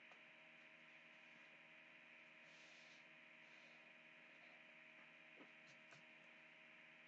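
Near silence: a faint steady electrical hum, with a couple of faint small clicks near the end.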